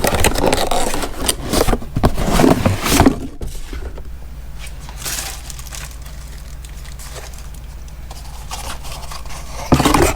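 Scraping and rustling as the cardboard box and its paper contents are handled, loud for about three seconds, then quieter over a steady low hum, and rustling again near the end.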